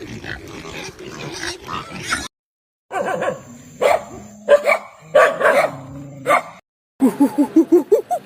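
A series of short animal call clips separated by brief silent cuts. It opens with a rough, noisy stretch, then loud separate calls, then rapid repeated calls of about four a second near the end.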